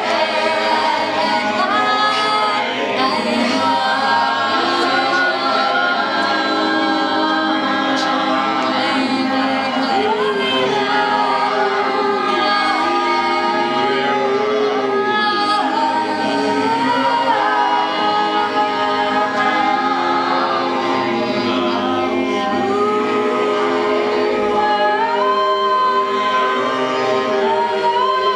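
Several voices singing together without instruments, holding long overlapping notes and sliding up and down between pitches.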